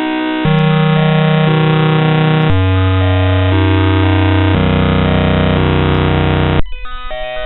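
Synthesized bytebeat-style sound effect generated by a Windows GDI malware: a harsh, distorted electronic tune of blocky tones that hold about a second each and then jump to new pitches. Near the end the loop starts over with a short jittery flurry of quick notes.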